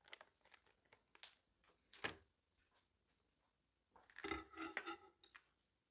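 Faint taps and clicks from hands working a fork, a plastic cheese tray and a glass mixing bowl, with a busier spell of clinks and rustling a little after four seconds in.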